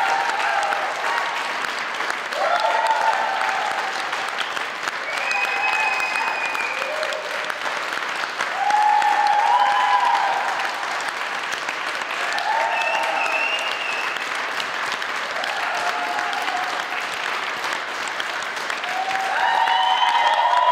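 Audience and performers applauding steadily, with voices calling out over the clapping every second or two.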